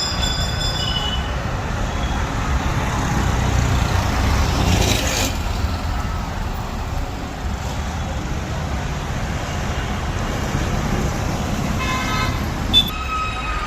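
Road traffic running steadily with a low rumble, with short vehicle horn toots near the start and again near the end.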